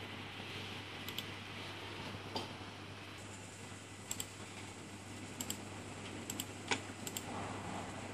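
Small plastic buttons clicking, about seven times over the stretch, mostly as quick press-and-release pairs, over a low steady electrical hum.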